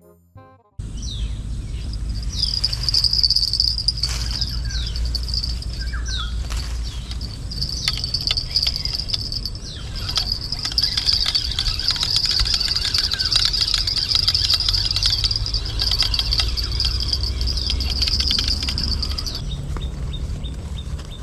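Outdoor ambience dominated by a steady, shrill insect call that starts about two seconds in and stops near the end, with a few short bird chirps and scattered clicks over a low rumble.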